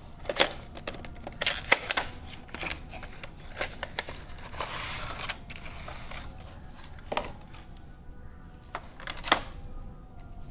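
Cardboard earbud box and its plastic inner tray being handled: a run of sharp clicks and taps, with a brief scraping rustle about halfway through as the tray slides out of the box.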